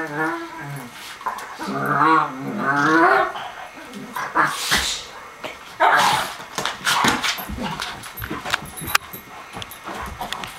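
Two dogs play-fighting: wavering growls at the start and again from about one and a half to three seconds in, then noisy scuffling and a sharp click near the end.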